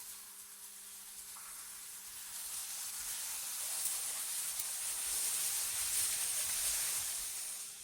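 Wind blowing as a steady high hiss, swelling and easing in gusts, louder in the second half and dropping away near the end.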